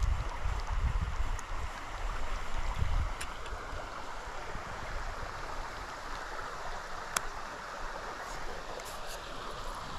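Steady rushing of a flowing creek, with wind buffeting the microphone in low gusts for the first three seconds or so. A few faint ticks sound over it.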